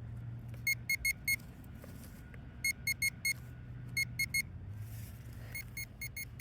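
Metal detector beeping in quick bursts of three or four short, high, same-pitch beeps, repeated every second or two as it closes in on a tiny piece of metal in the ground. A low steady hum runs underneath.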